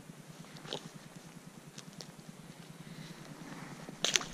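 Quiet handling of gloves, phone and a freshly caught bluegill, with a few faint clicks, then a short burst of sharp crackling clicks about four seconds in as the fish is dropped onto the snow.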